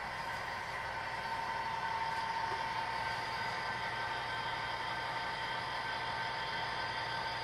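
HO scale model train moving slowly along the track: the locomotive's small electric motor whirs steadily with the cars rolling over the rails, a low hum joining about three seconds in.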